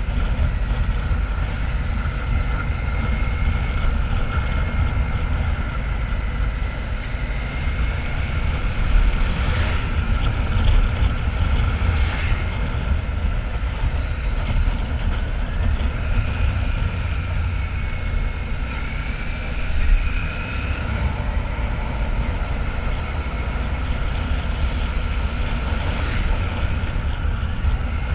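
Royal Enfield Shotgun 650's parallel-twin engine running steadily while the motorcycle is ridden at an even pace, with a low rumble, a couple of faint, slowly wavering tones and a few brief clicks.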